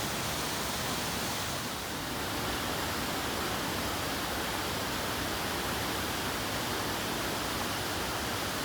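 Steady rush of a mountain creek running high and full after heavy overnight rain, an even roar of water with no breaks.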